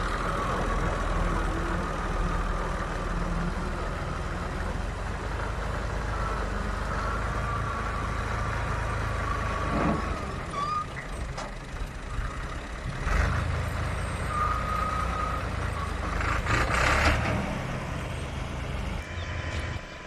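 Farm tractor's diesel engine running steadily at close range, with a high whine that comes and goes and a few sharp clanks.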